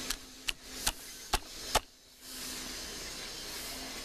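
Five sharp clicks about half a second apart around a toy train set on its plastic track, followed by a faint steady hum.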